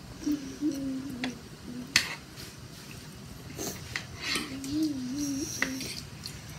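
Metal fork and spoon clinking and scraping against a plate while fried rice is eaten, with a few sharp clicks, the loudest about two seconds in. Twice a low wavering hum rises and falls underneath, once near the start and again about two-thirds through.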